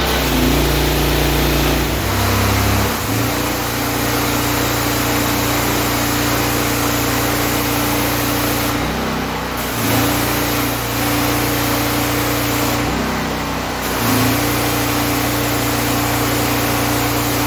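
Honda GX390 single-cylinder engine running a belt-drive pressure washer pump, with the wand spraying water onto concrete. The engine note dips and recovers briefly a few times as the load on the pump changes. The pump is now delivering full pressure after the repair.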